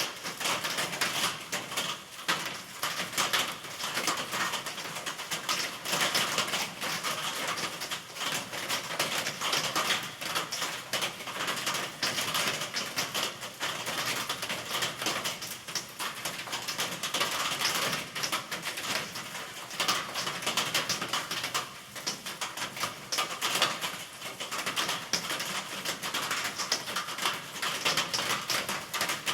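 Steady rain: a dense, even patter of many close drops, with no thunder.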